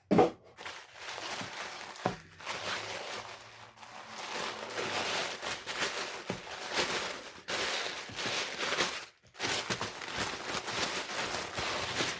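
Crinkling and rustling of packaging being handled and opened by hand, with a short pause about nine seconds in.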